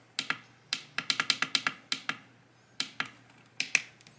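Buttons on a Bluetooth speaker alarm clock clicking as they are pressed again and again to set the time, with a quick run of presses about a second in and single presses spread through the rest.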